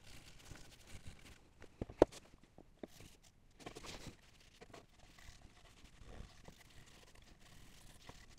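Faint rubbing and rustling with scattered light clicks, and one sharp click about two seconds in: handling noises while oil is wiped onto a beech-wood stand.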